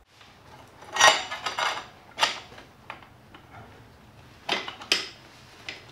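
Metal hand tools and parts clinking and knocking against each other: a few sharp clinks about a second in, another just after two seconds, and a pair near the end.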